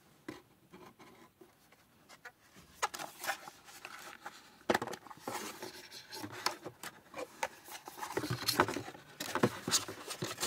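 Cardboard packaging scraping and rubbing, with light knocks, as a pop filter is worked out of its folded cardboard box insert. It is fairly quiet for the first couple of seconds, then a busy run of scrapes and taps follows.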